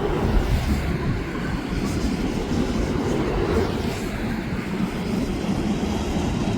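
An LNER passenger train running past, a steady noise without marked changes.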